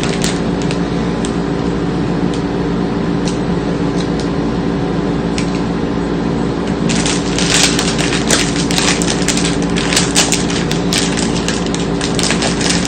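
Plastic wrapper of a packaged snack cake crinkling and crackling as it is opened and handled: scattered crackles at first, then a dense run from about seven seconds in. Under it there is a steady low hum.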